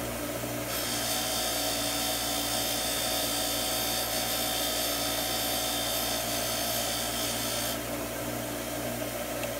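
Tool Shop bench grinder running steadily with a wire wheel, a long bolt held against the spinning wheel to strip and polish it: a steady motor hum under a hissing, scratchy brushing that starts about a second in and stops about two seconds before the end.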